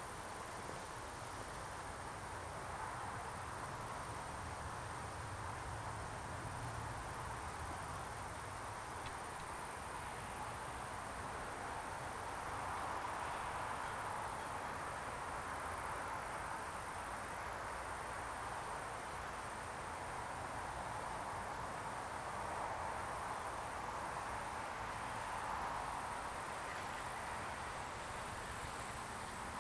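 Crickets chirping in a steady high-pitched trill that breaks off briefly now and then, over a low even background hiss.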